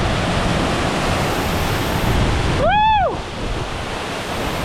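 Steady rushing of a waterfall pouring into its pool. About three seconds in there is one short shouted "woo!" that rises and falls in pitch.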